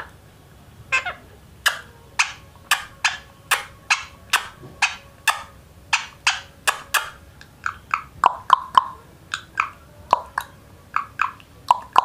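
Indian ringneck parakeet making a long run of short, sharp clicks, about two a second and unevenly spaced.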